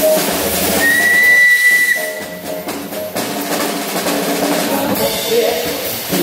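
Background music with drums. About a second in, a small narrow-gauge steam locomotive's whistle gives one short, high, steady blast lasting about a second, as the engine pulls away with its train.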